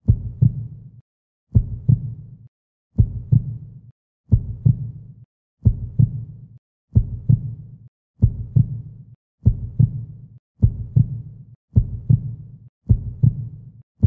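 A low double thump repeating like a heartbeat, one pair roughly every second and a half, quickening slightly toward the end, with silence between the beats.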